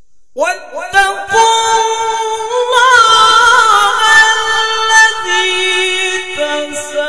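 A male qari reciting the Qur'an in the melodic tilawah style into a microphone. A high, long-held melismatic phrase with ornamented turns begins about half a second in. The pitch steps down near the end and then rises again.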